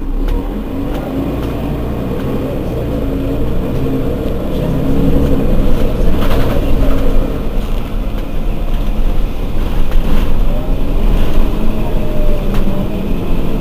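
Mercedes-Benz Citaro Facelift city bus engine running under way, growing louder about five seconds in as it revs up, with a faint whine sliding up and down near the end.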